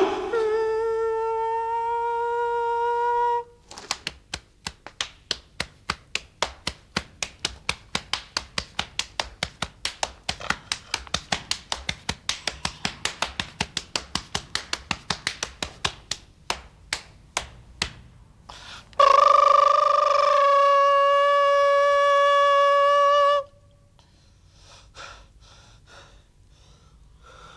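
Two long held horn notes, the first at the start and the second about 19 seconds in. Between them is a steady run of sharp clicks or knocks, about three to four a second.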